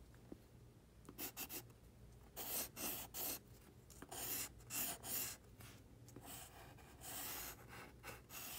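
Graphite pencil scratching on a paper sticky note, crossing out items on a written checklist: quick groups of short back-and-forth strokes with brief pauses between them, starting about a second in.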